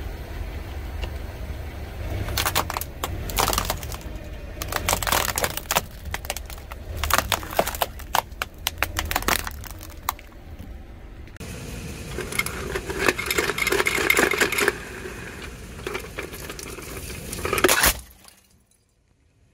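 A car tire rolling slowly over brittle objects, crushing them in a run of sharp cracks and snaps over a low rumble. The sound cuts off suddenly near the end.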